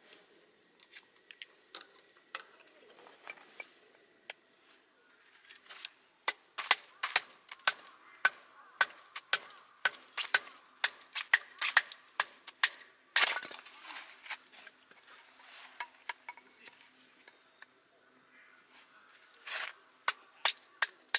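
Metal camping gear being handled, making sharp clicks and clinks. They come sparsely at first, then quickly one after another from about six seconds in, with the loudest knock about thirteen seconds in and another near the end.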